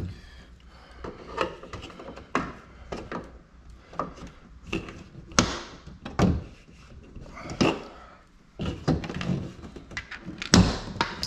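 Plastic retaining clips of a Lippert screwless RV door window frame snapping loose, one after another, as the frame ring is pressed in and worked free. The sound is an irregular string of sharp clicks and knocks.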